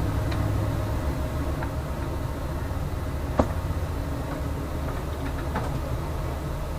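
A steady low mechanical hum, with one sharp click about halfway through and a few faint ticks.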